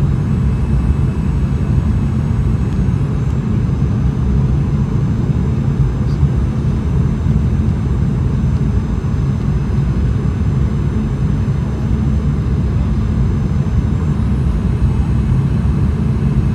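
Steady low rumble of jet engines and rushing air heard inside an airliner cabin on final approach, with a faint high whine over it.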